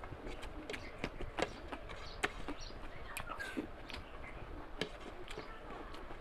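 Close-miked eating: chewing and lip smacks in many sharp, irregular clicks, with fingers working rice and curry on a plate.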